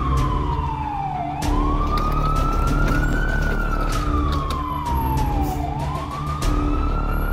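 Ambulance siren wailing, its pitch slowly rising and then falling in long sweeps of a few seconds each.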